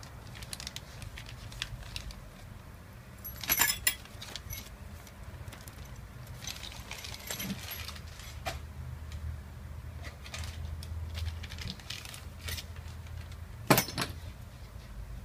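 Metal hand tools and engine parts clinking and clattering as they are handled on a workbench, with scattered light clicks, a loud clatter about three and a half seconds in and a sharp clink near the end, over a low steady hum.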